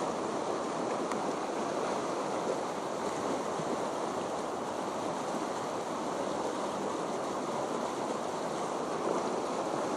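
Small mountain stream rushing steadily.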